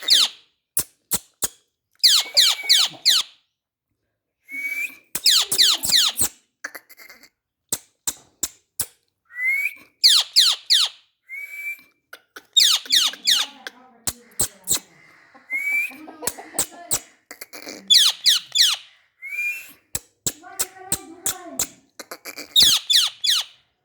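Indian ringneck parrot calling: loud, falling screech calls in bursts every two to three seconds, with short rising whistled notes and sharp clicks in between.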